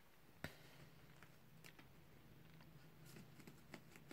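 Faint, irregular ticks and scratches of a Maine Coon kitten shuffling and pawing in spilled cat litter, with one sharper click about half a second in.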